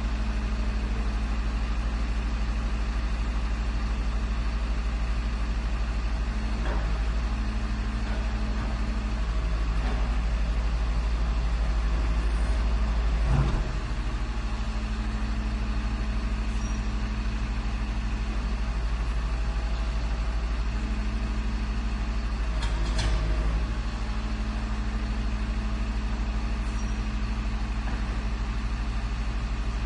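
Garbage truck engine running steadily, a low, even drone, with a few sharp knocks and clanks scattered through it.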